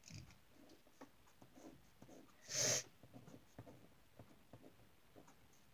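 Faint scratching strokes of a drawing tool on a sheet of paper laid on a wooden table, many short irregular ticks. A brief louder burst of hiss about two and a half seconds in.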